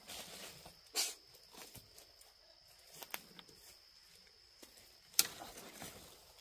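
Bush branches and leaves rustling, with a few sharp snaps and clicks, the loudest about a second in and just after five seconds, over a faint steady high-pitched tone.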